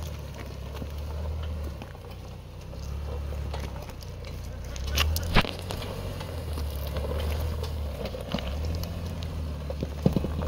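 Off-road 4x4's engine running at low crawling speed, its rumble swelling and easing as the throttle comes on and off, with crunches and knocks from the tyres and body over the rough trail; one sharp knock about five seconds in, and two more near the end.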